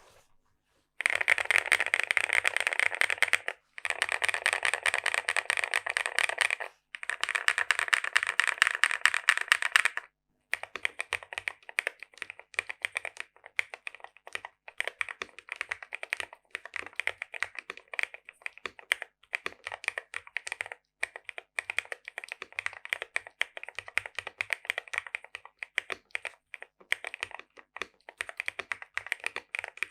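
Mechanical keyboard with BSUN Flower Shadow switches, which are made of LY material, being typed on. There are three quick runs of fast typing in the first ten seconds, separated by short pauses, and then slower, spaced keystrokes.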